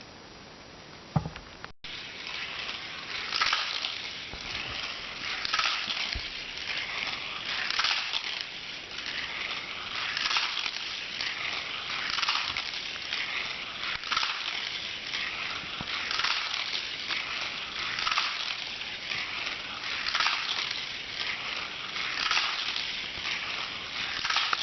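Toy cars rolling round a plastic Hot Wheels Spiral Speedway track, a rattling whir that swells and fades about every two seconds as the cars lap. A sharp click comes about a second in, just before the rolling starts.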